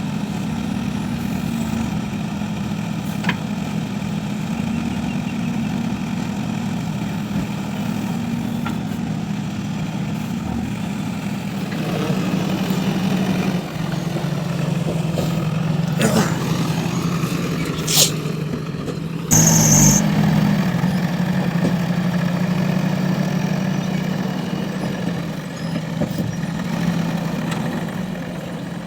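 JCB 3DX backhoe loader's diesel engine running steadily. Its note drops and grows louder about twelve seconds in, as if put under load. A few sharp knocks, and a short loud burst about twenty seconds in.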